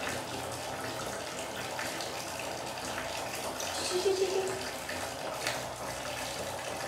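Water running steadily, with small splashes while a baby monkey is washed over a basin, and a brief short vocal sound about four seconds in.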